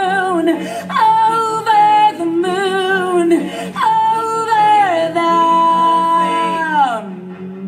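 A solo voice singing a slow melody in held notes with wide vibrato, in phrases of about a second each, ending in one long note that slides downward near the end.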